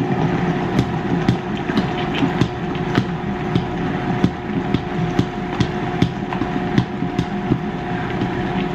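Vitamix blender motor running on its third speed, a steady whine, with irregular knocks several times a second as a thick frozen-fruit smoothie churns in the jar.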